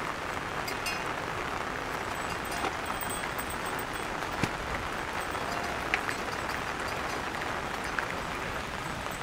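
Steady rain falling, an even hiss with a few louder single taps of drops now and then.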